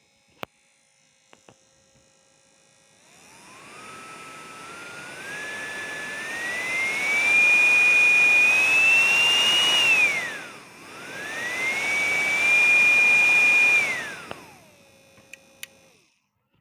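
A 775 DC motor (Johnson, 12 V, 21,000 rpm type) running off an adjustable adapter, with a high whine and the rush of its internal fan. The whine starts low, climbs in steps to a high pitch over several seconds, and dips sharply about ten seconds in. It then climbs again, winds back down and stops near the end.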